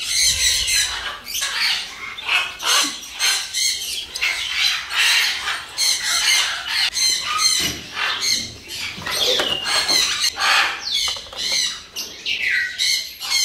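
Caged parrots squawking and screeching, many short calls in quick succession, some of them falling in pitch.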